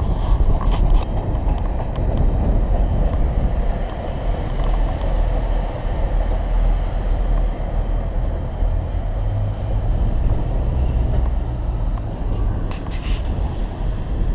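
Diesel multiple unit pulling out of the station, its diesel engines running with a steady low rumble that grows heavier about two-thirds of the way in.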